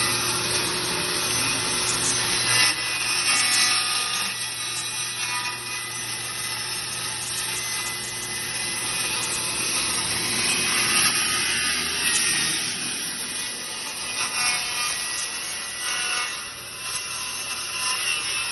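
Circular saw cutting through wood in one long continuous pass, steady with small rises and dips in loudness as the blade works through the board.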